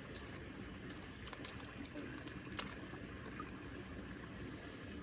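Insects trilling steadily outdoors in summer, one unbroken high-pitched drone over a faint low background rush.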